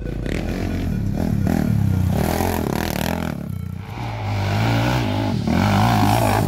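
Racing quad engines revving up and down as the ATVs ride the dirt course, the pitch climbing and dropping repeatedly, louder toward the end.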